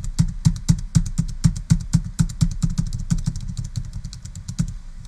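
Computer keyboard keys tapped quickly and evenly, about seven presses a second, stopping near the end: repeated presses of a deleting key while lines of code are removed.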